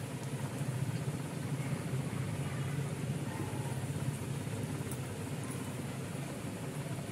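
Rava-coated veg cutlets shallow-frying in hot oil in a kadhai on a gas burner: a steady low rumble with a faint hiss, growing slightly louder about a second in.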